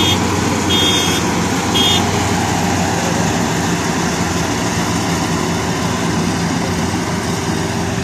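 FMWorld rice combine harvester's engine running steadily under load as it cuts through the paddy, slightly fading as it moves away. A high electronic warning beeper sounds about once a second and stops about two seconds in.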